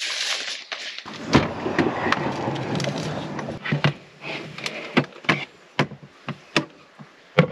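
Cookware and utensils being handled: about three seconds of dense clatter, then a string of separate sharp knocks and clicks.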